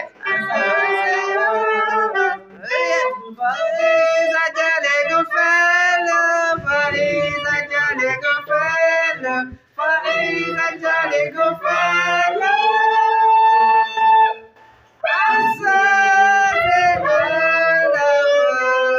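Saxophone playing a melody in phrases of long held notes and short runs, with brief pauses about ten seconds in and again near fifteen seconds.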